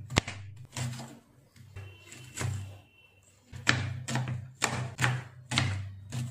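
Kitchen knife chopping an onion on a cutting board: a run of sharp knocks as the blade strikes the board, about two or three a second, with a pause of about a second in the middle before a quicker run.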